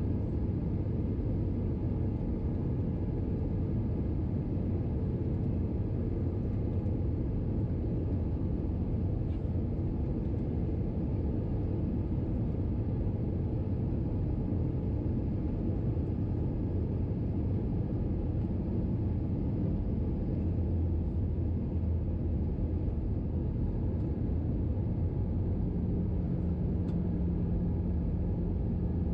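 Cabin noise inside an Airbus A321-211 on descent: the steady low rumble of its CFM56 engines and the airflow past the fuselage. A low steady hum joins in near the end.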